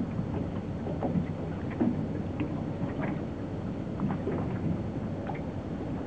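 Wind rumbling steadily on the microphone over open water, with light irregular crackles throughout.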